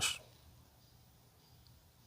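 Near silence: faint room tone after the end of a man's spoken word.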